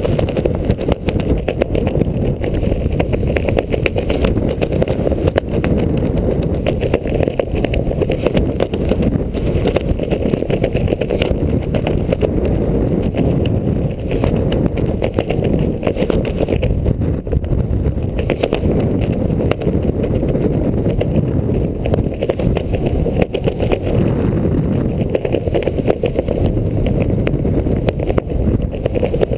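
Wind buffeting a skydiver's camera microphone: a loud, steady low rush with no pauses.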